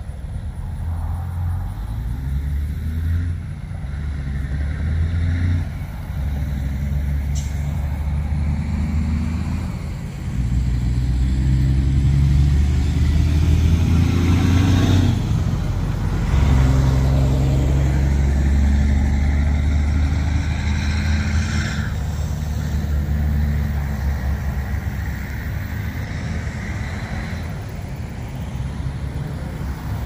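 Road traffic: vehicles going by with a steady low rumble, one passing close about halfway through and another a little later.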